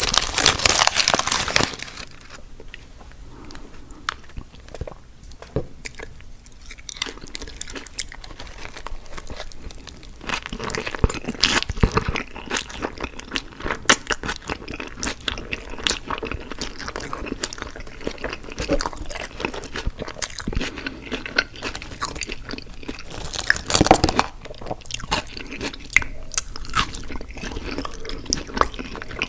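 Close-miked eating mouth sounds: crunchy food being bitten and chewed, with wet clicks and smacks of the mouth. A loud paper rustle fills the first two seconds.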